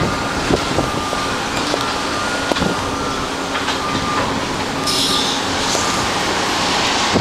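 Cat-Klein water truck's diesel engine running steadily as the machine drives, with a thin high whine that comes and goes.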